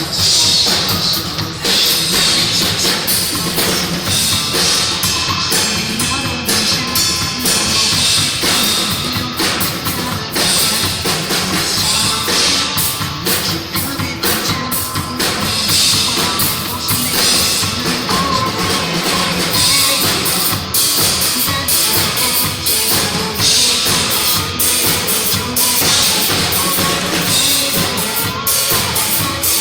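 Music with a steady drum-kit beat, playing continuously.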